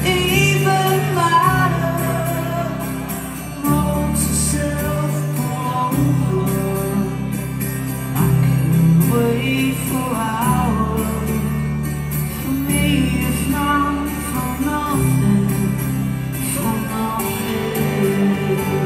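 A live indie rock band playing, with a male lead singer's vocals over electric guitar, keyboard and a steady bass, heard through the venue's PA from within the crowd.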